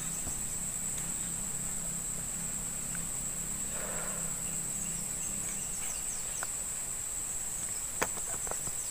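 Steady high-pitched chorus of insects such as crickets, droning without a break, with a single sharp click about eight seconds in.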